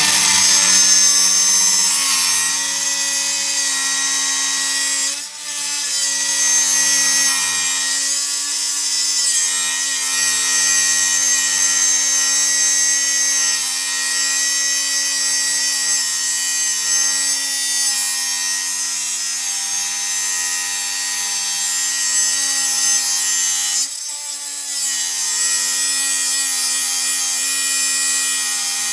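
Small DeWalt angle grinder cutting through a steel bar: a steady motor whine with the hissing grind of the wheel in the metal. It briefly eases off about five seconds in and again near the end.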